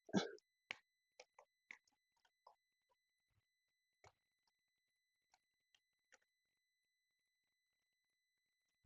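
Near silence broken by scattered sharp clicks and knocks, like small parts being handled, the first one the loudest, over a faint steady high-pitched tone.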